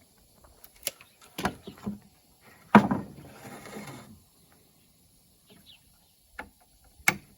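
Pallet boards being handled: a series of sharp wooden knocks, the loudest about three seconds in, followed by a second of scraping as a board slides.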